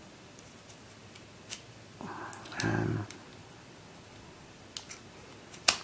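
Scattered light plastic clicks from the rings and segments of a Brainball puzzle being turned and handled, with a brief louder low sound about two and a half seconds in and a sharper click near the end.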